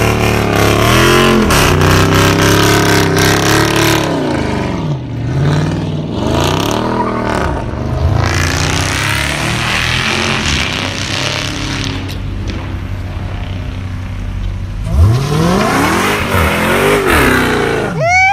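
Dodge muscle car V8s, a Challenger and then a Charger SRT, revving hard during burnouts: the engine note climbs and falls again and again as the rear tyres spin and squeal.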